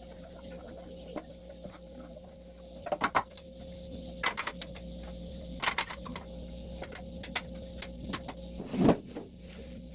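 A few sharp knocks and clatters over a steady hum, the loudest near the end.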